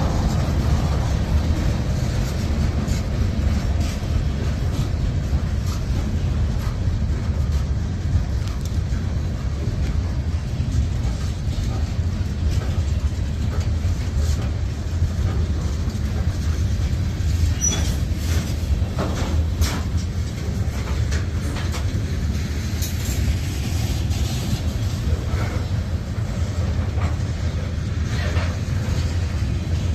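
Freight train cars rolling past: a steady low rumble of steel wheels on rail, with scattered sharp clicks and clanks, several in a cluster a little past the middle.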